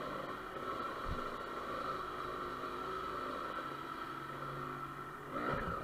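Dirt bike engine running at low speed inside a corrugated metal culvert pipe, steady, with the engine pitch rising and falling near the end.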